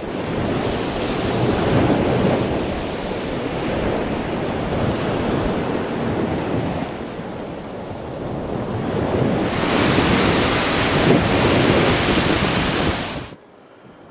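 Surf washing on a sandy ocean beach, mixed with wind rumbling on the microphone. It swells twice and cuts off suddenly about a second before the end, leaving a faint hiss.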